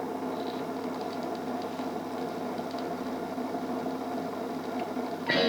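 Steady hiss and hum from the Sanyo G 2312 record player/radio's speaker, with faint ticks, until music starts abruptly about five seconds in.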